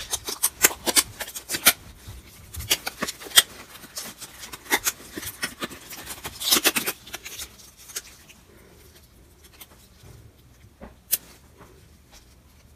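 Disposable gloves being pulled on and a plastic syringe and its wrapper being handled: a quick run of sharp clicks, crinkles and rustles, with a longer swish about six and a half seconds in. It thins out after about eight seconds, leaving a single click near the end.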